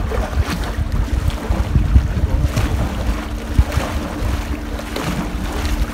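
Wind buffeting the microphone on an open boat at sea, with waves splashing around the hull and a steady low hum underneath.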